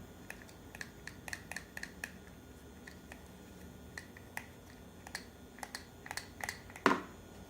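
Repeated light clicks and taps as the electric ride-on ATV's replacement foot pedal is pressed, with a louder knock near the end; no motor starts, the fault the owner puts down to the controller electronics rather than the pedal.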